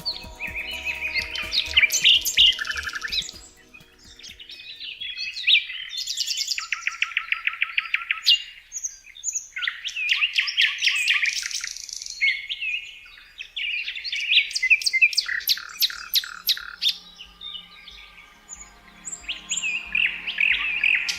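Songbirds singing and chirping in a busy run of phrases, including fast trills of rapidly repeated notes about seven seconds in and again around fifteen seconds. A faint soft background music pad sits under the birds at the start and returns near the end.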